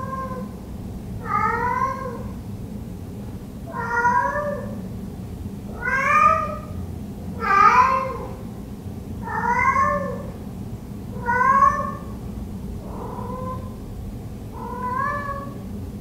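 A domestic cat meowing over and over, about nine long calls spaced every second and a half to two seconds, each rising then falling in pitch, loudest in the middle. It is a lone cat calling for its absent owner.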